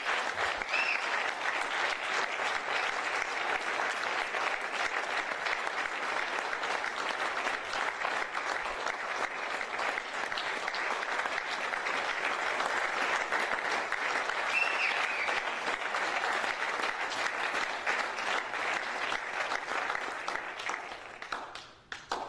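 A church congregation applauding steadily for about twenty seconds, with a couple of short cheers rising above the clapping. The applause dies away just before the end.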